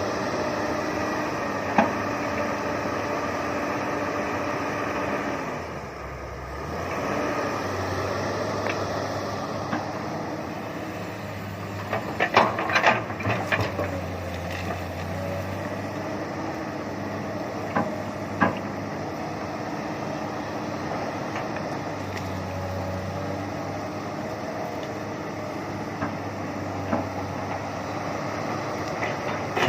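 Komatsu PC200 hydraulic excavator's diesel engine running steadily, dipping briefly about six seconds in, with sharp knocks and cracks over it: one early, a cluster about halfway through, and two more a few seconds later.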